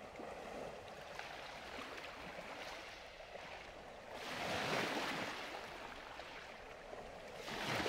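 Faint ocean waves washing on a shore, swelling about four seconds in and again near the end.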